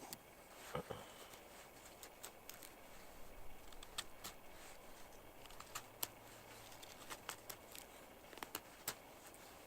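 About a dozen sharp little clicks and snaps at irregular intervals over a quiet background.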